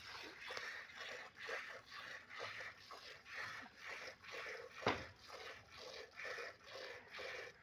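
Milk squirting from a cow's teats into a plastic container during fast hand milking: a steady rhythm of short hissing squirts, about two a second. A single sharp click about five seconds in is the loudest sound.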